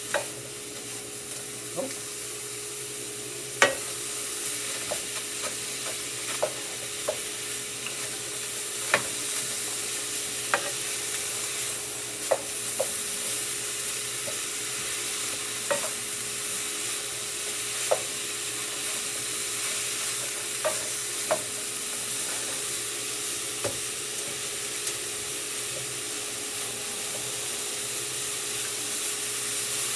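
Meat searing and sizzling in a frying pan as it is stirred, with scattered sharp clicks of a wooden spoon against the pan.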